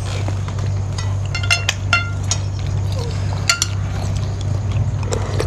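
Metal spoons and forks clinking against glass plates while eating: a scatter of light clinks that ring briefly, several close together, over a steady low hum.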